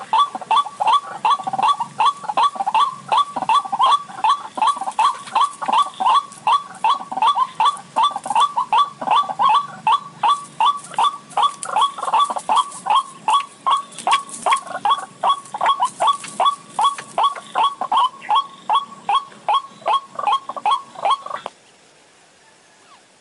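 White-breasted waterhen (ruak-ruak) call played as a bird-trapping lure: a fast, evenly repeated 'kruak' note, about three a second, that cuts off suddenly near the end.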